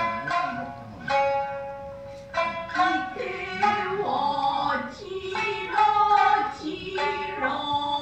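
Traditional Japanese dance music for the maiko dance: a plucked shamisen playing sharp notes that ring and fade, joined about three seconds in by a voice singing long, wavering notes.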